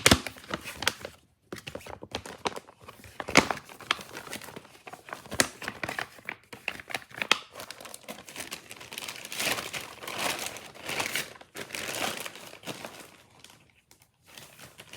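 Plastic crinkling and rustling with scattered sharp clicks and taps, as packaged items are handled and pulled from a bag pocket; the busiest crinkling comes about nine to twelve seconds in.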